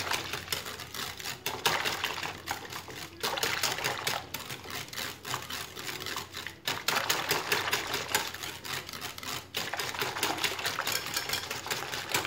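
Wire balloon whisk beating a thin egg-and-milk mixture in a glass bowl: fast, steady clicking of the metal wires against the glass with liquid sloshing. It breaks off briefly a few times.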